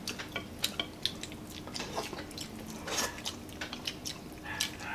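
Close-up eating sounds of several people eating beef shank and bone-marrow soup: scattered wet smacks, slurps and short clicks, with a light clink of a spoon against a bowl.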